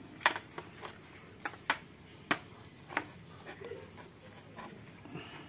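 Sharp clicks and light knocks of wooden machete sheaths and handles being handled and knocked together, a quick irregular series, most of it in the first three seconds.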